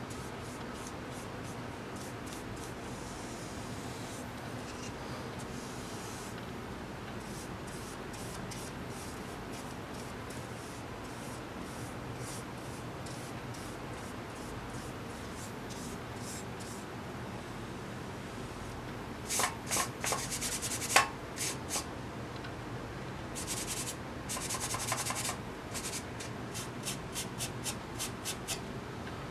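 Paintbrush bristles stroking paint onto a model truck fender, a string of short, soft, scratchy strokes. About two-thirds of the way through come a few sharper, louder clicks, and near the end a sponge dabs and rubs over the part, about three quick strokes a second.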